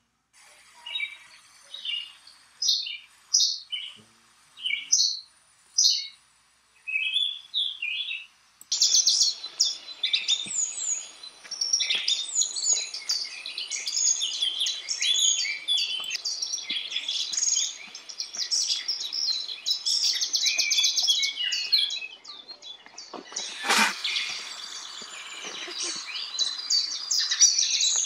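Small birds chirping: separate short high chirps with pauses between them, then, about a third of the way in, a dense chorus of many birds chirping over each other with a faint hiss behind. A single sharp click cuts through near the end.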